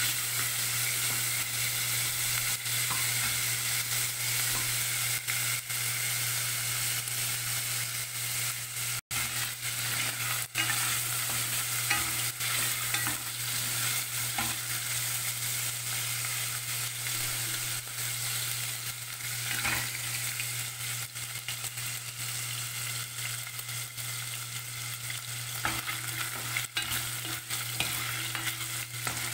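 Pork strips sizzling in hot cooking oil in a pot, being browned, while a wooden spatula stirs and scrapes them around the pan with frequent short scrapes and knocks.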